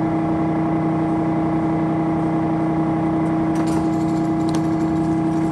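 Monarch 16" x 30" geared-head engine lathe running, its headstock gearing giving a steady hum. A few light clicks come near the end as a headstock lever is handled, and a sharp knock comes right at the close.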